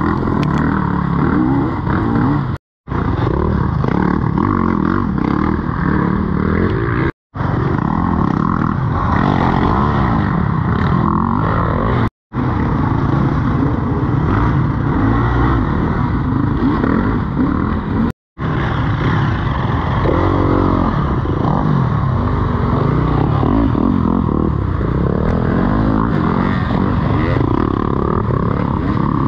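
Dirt bike engines running hard and revving, the pitch rising and falling with the throttle. The sound cuts out to silence for a moment four times, at about 3, 7, 12 and 18 seconds in.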